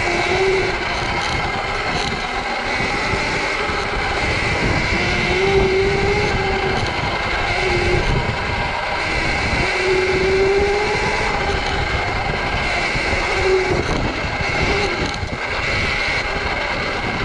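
Sur-Ron electric dirt bike being ridden: the electric motor and chain drive whine, rising and falling in pitch with the throttle, over steady wind and tyre noise.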